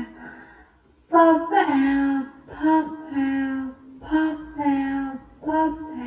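A high-pitched voice chanting "pop out" over and over in a sing-song, about five times: a higher short "pop" then a lower held "out", after a brief pause near the start.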